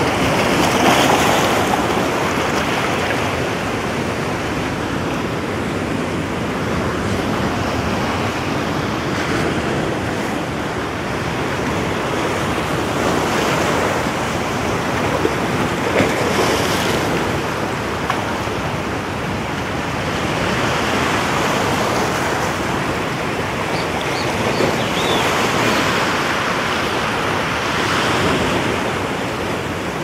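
Low surf breaking on a sandy beach, with foam washing up the sand. It is a steady rush that swells and eases every few seconds as each wave comes in.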